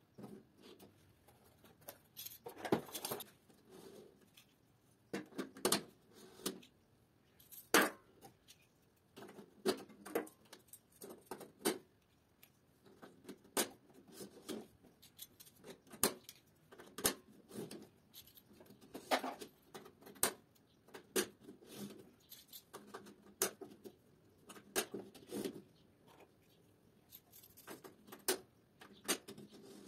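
Plastic DIN-rail terminal blocks being snapped onto and slid along metal DIN rails by hand: irregular sharp plastic clicks and short scrapes, spread through the whole stretch.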